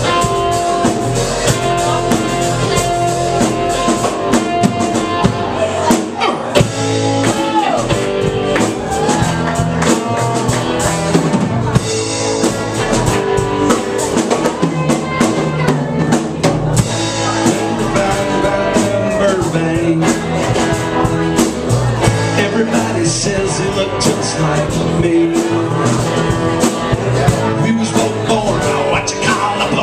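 Live rock band playing an instrumental section: a drum kit and bass under electric guitars, with a lead line of held notes that bend in pitch.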